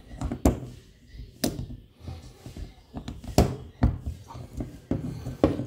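Several sharp knocks and clicks at irregular intervals as tools and small carburettor parts are handled during carburettor cleaning.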